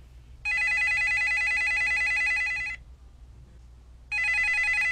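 Telephone ringing twice with an electronic trilling ring, each ring about two seconds long with a pause of a little over a second between them: a call ringing out, waiting to be answered.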